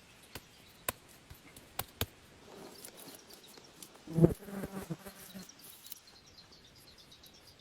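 A few light taps or knocks, then a flying insect buzzing close past the microphone for about a second and a half, about four seconds in.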